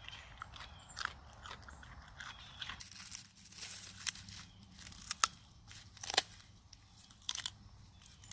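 Coyote biting and chewing crisp raw greens: irregular wet crunches and crackles, a dense run of them midway and two sharp loud snaps about five and six seconds in.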